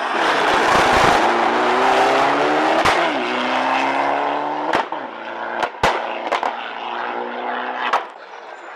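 Mitsubishi Lancer Evolution IX race car's turbocharged engine at full throttle as it passes close and pulls away uphill, its pitch climbing and dropping back with each upshift. Sharp exhaust bangs crack out between the pulls, and the engine fades away after about eight seconds.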